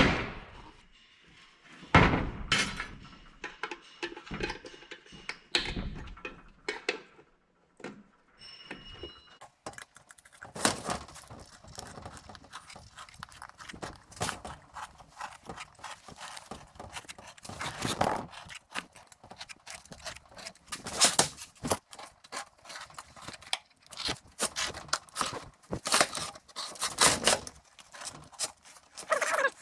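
Scattered short knocks, clicks and rattles of objects being handled and set down, sparse at first and busier from about ten seconds in.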